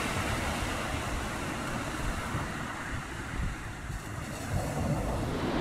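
Wind buffeting the microphone over the steady wash of surf on a shingle beach, a low rumble with a high hiss.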